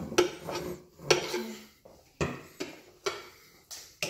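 Metal utensil clinking and scraping against a metal mixing bowl while stirring cake batter: about seven sharp, irregular knocks.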